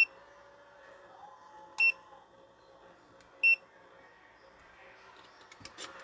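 Digital multimeter beeping: three short, high beeps about a second and a half apart, followed by a few light clicks near the end.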